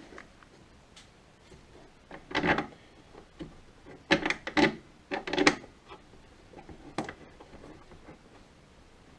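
Hand work on the pannier lock mechanism: a few short knocks and clatters as parts and tools are handled and set down, loudest about two and a half seconds in and in a quick cluster between four and five and a half seconds.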